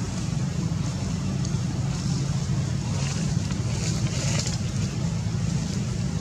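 Steady low rumble of wind buffeting the microphone, with a few faint rustles near the middle.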